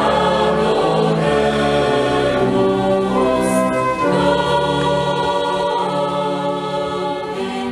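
Mixed choir of men's and women's voices singing a slow Christmas carol in held chords that change together about once a second, growing slightly softer near the end.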